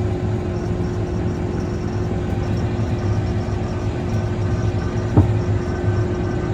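Tractor engine running steadily, with a single knock about five seconds in.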